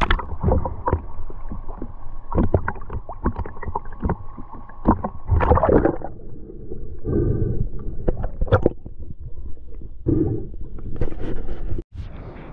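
Water splashing and sloshing around a small boat, with irregular knocks and splashes.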